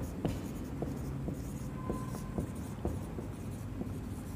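Marker pen writing on a whiteboard: a string of short strokes and light taps about every half second, with a brief squeak about two seconds in.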